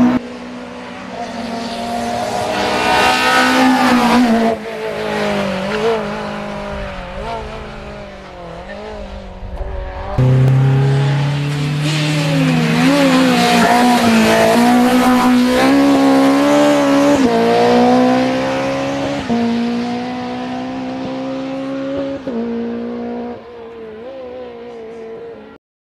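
Race-tuned Honda S2000 F20 four-cylinder engine in a hillclimb Honda CRX at full throttle, revving high and running up through a sequential gearbox in a series of quick shifts, each one climbing in pitch and then dropping. It passes by, gets suddenly louder and closer about ten seconds in, and fades away near the end.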